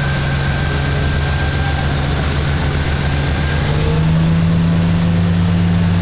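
Motorboat engine running steadily at towing speed under the rush of wake water and wind; its note rises a little and gets slightly louder about four seconds in.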